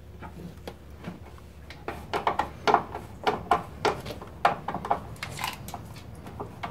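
Irregular run of small metallic clicks and light clatter, starting about two seconds in, as a braided stainless heater hose and its clamp are fitted and tightened at an aluminum radiator.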